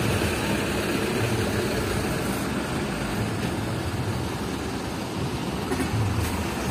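Diesel truck engines running as a line of trucks rolls slowly by, with motorbikes coming up among them; a steady low rumble with no sudden events.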